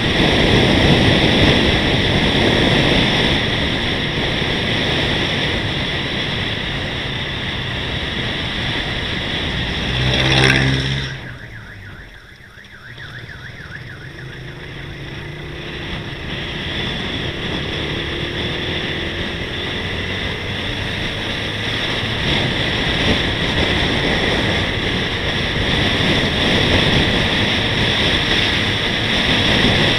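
Steady rush of wind and road noise on a vehicle-mounted action camera's microphone while travelling. About ten seconds in there is a short pitched tone. The rush then drops away for a couple of seconds and builds back up gradually.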